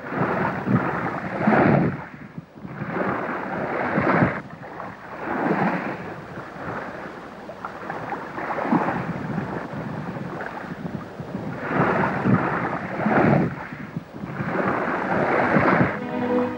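Beach ambience: rushing sea wind and surf, surging up and down every second or two.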